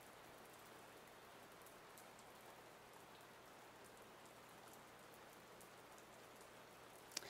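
Near silence: faint steady hiss of room tone with a low hum.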